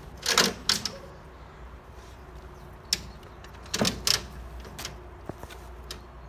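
German Shepherd's metal chain tether rattling and clinking as the dog moves about, in a few short sharp bursts: two about half a second in and two around four seconds in, with lighter clinks between.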